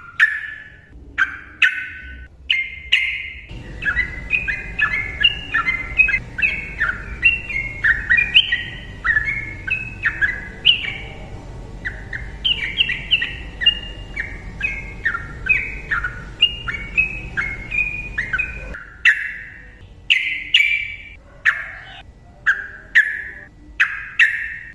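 Sooty-headed bulbul singing: short whistled phrases, breaking into a long rapid run of notes from about four seconds in until about nineteen seconds in, then short phrases again.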